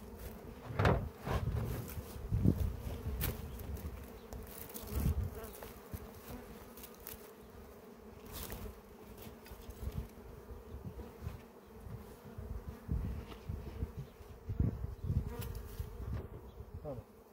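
Honeybees buzzing around an opened hive in a steady hum. Irregular knocks and thumps of wooden hive parts being handled as the hive is closed, the loudest about a second in.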